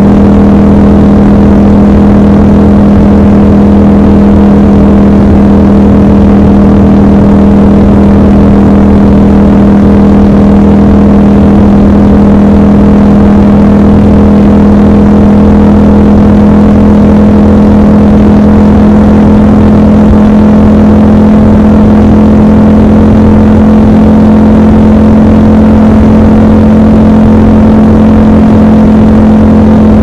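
Triumph Scrambler 1200 XC's 1200 cc parallel-twin engine running steadily under load at motorway cruising speed. Its drone is even, and its pitch creeps up slightly in the second half as the bike gathers a little speed.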